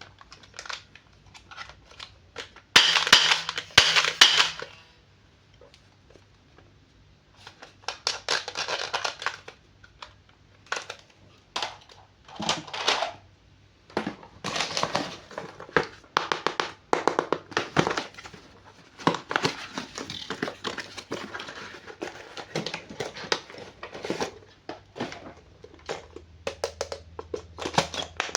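Plastic toy packaging crinkling and rustling in irregular bursts, with scattered clicks and taps as it is handled and opened.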